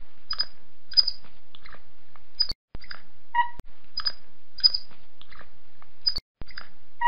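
Capuchin monkey calling: a series of short, high squeaks and chirps, about one to two a second.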